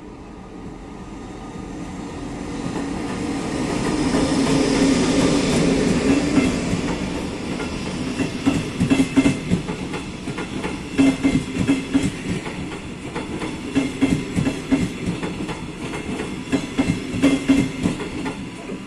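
An electric locomotive hauling red double-deck passenger coaches rolls past close by. The sound swells to a peak about five seconds in as the locomotive goes by, then the coaches' wheels clatter over the rail joints in repeated clickety-clack groups.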